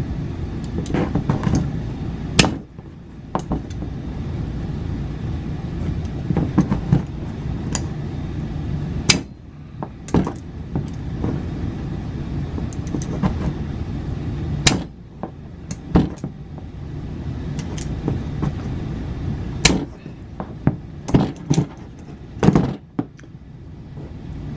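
Sharp metal clicks of vice grips clamping and releasing while crimping a sleeve onto a steel cable leash leader, about a dozen spread unevenly. A steady low hum runs underneath and drops away a few times.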